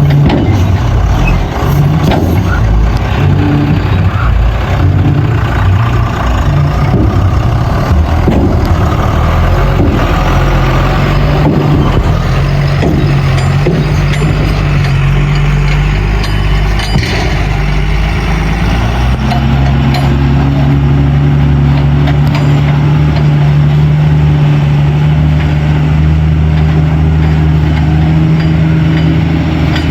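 Heavy diesel engine running at work, its pitch rising about eighteen seconds in and then holding steady at higher revs. Scattered short knocks come in the first half.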